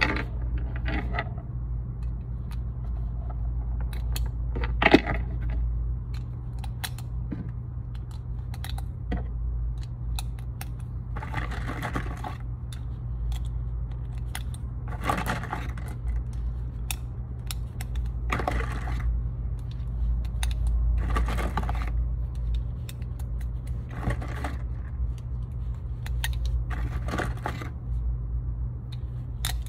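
9mm cartridges being pushed one by one into a 15-round pistol magazine: a run of small metallic clicks, one sharper than the rest about five seconds in, over a steady low hum.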